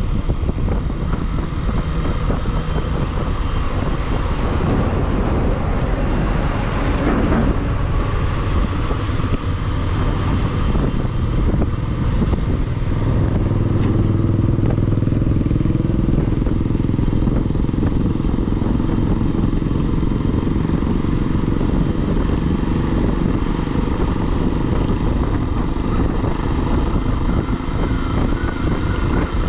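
Bajaj Pulsar motorcycle riding at a steady speed: the engine runs steadily under wind rush on the microphone.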